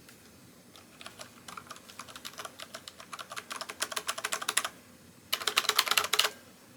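Typing on a new mechanical keyboard: a run of key clicks starting about a second in and quickening, a short pause, then a fast burst of keystrokes near the end.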